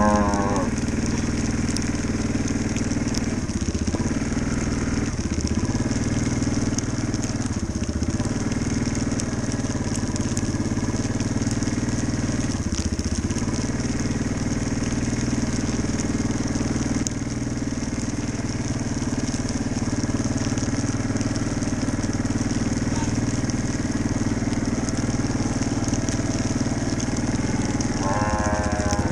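ATV engine running steadily while riding over snow and sleet, with crunching noise throughout. A cow moos near the end.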